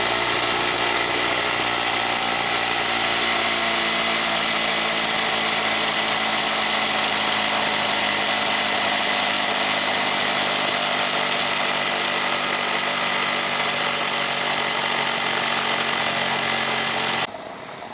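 Jensen model 70 ball-raced toy steam engine running flat out at a steady speed, its hum held at one pitch under a loud hiss of steam. The sound cuts off suddenly near the end.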